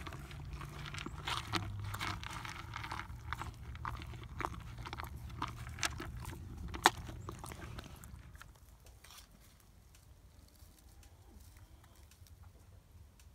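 A three-week-old Black Angus calf crunching and chewing pellets of calf starter feed from a bucket, with many small sharp crunches; the chewing stops about eight seconds in.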